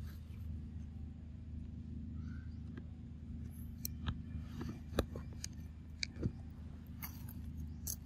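Dry leaf litter and twigs crackling on a forest floor as feet move over it, with a handful of sharp snaps from about halfway in, over a steady low hum.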